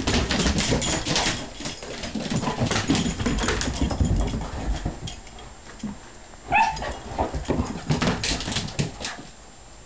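Two dogs, a mini Bullmastiff and a puggle, play-wrestling: quick scuffling of paws and bodies on the floor, with one dog giving a short high yelp about two-thirds of the way through. The scuffling stops shortly before the end.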